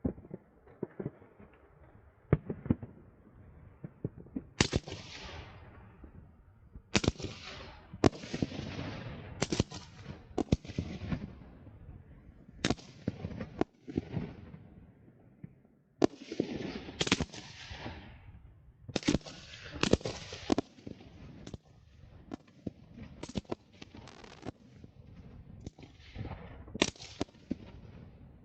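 Fireworks display going off: a rapid, irregular series of sharp bangs and booms, each trailing off in a fading rumble, with several coming close together near the middle and near the end.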